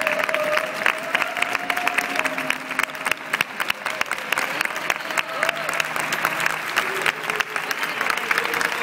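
A large audience applauding: many hands clapping steadily and densely.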